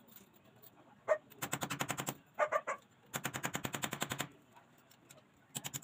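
Electric drill boring into the wall in three bursts of rapid rattling pulses, the longest about a second, with a short burst near the end.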